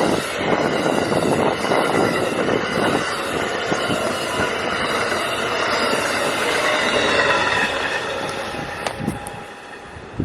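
Passenger train passing at speed: dense rail and wheel noise with steady high ringing tones. It fades over the last couple of seconds as the train moves away.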